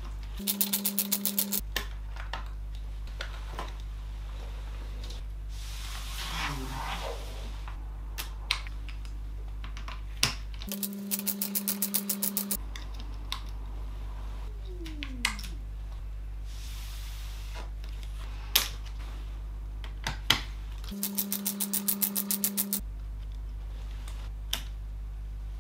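Electric precision screwdriver running three times for a second or two each, a steady whir with a rapid clicking, as small screws are backed out of a laptop's circuit boards. A steady low hum runs underneath, with a few faint clicks between the bursts.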